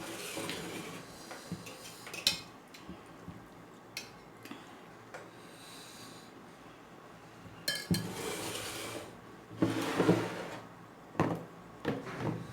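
Dishes and utensils clinking a few times during a meal of dhido and soup, with louder eating sounds around eight and ten seconds in.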